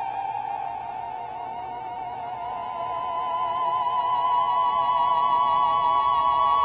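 Theremin playing one sustained note with a wide vibrato, which dips a little in volume and then, about halfway through, glides slowly upward and swells louder.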